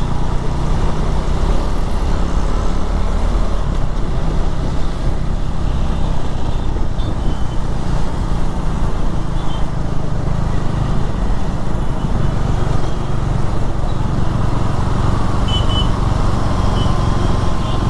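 KTM Duke 390's single-cylinder engine running steadily while riding, with road and wind noise.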